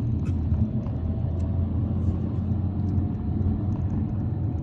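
Steady low road and engine rumble heard from inside a moving car's cabin, with a few faint knocks as it rolls over a bumpy road surface.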